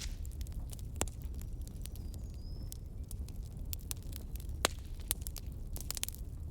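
Wood fire crackling: irregular sharp pops and snaps over a steady low rumble, with one louder pop about four and a half seconds in.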